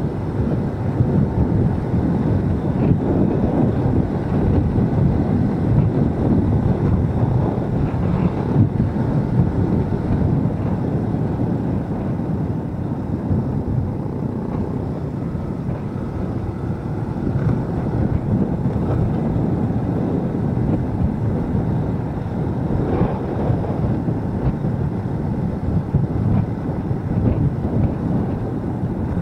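Steady wind rush buffeting the microphone of a moving motorcycle, mixed with the motorcycle's running engine.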